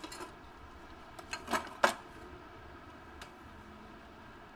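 Serving utensils clinking and scraping against bowls and pans as food is spooned out: a few short clinks, bunched together with the sharpest one just under two seconds in.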